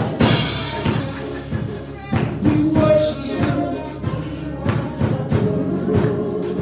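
Live church music with a drum kit keeping a beat under held pitched notes.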